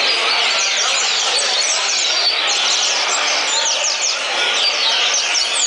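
Double-collared seedeaters (coleiros) singing, many caged birds at once. The result is a loud, continuous, overlapping chorus of quick, sharp, downward-sweeping chirps and trills.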